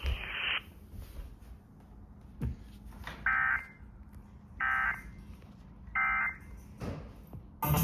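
Emergency Alert System end-of-message code: three short bursts of warbling digital data tones, about 1.4 seconds apart, sent over the broadcast to mark the end of the warning.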